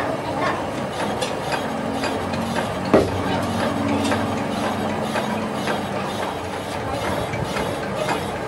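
Metal lathe running with a cast differential gearbox housing spinning in its chuck while a boring bar cuts the bearing seat: a steady machine whir with repeated light ticks and one sharper click about three seconds in.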